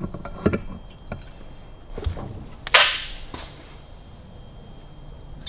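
Light metal clicks and knocks as the gear cover is set onto a Harley-Davidson WLC 45 engine's crankcase, then one short, sharp swish nearly three seconds in.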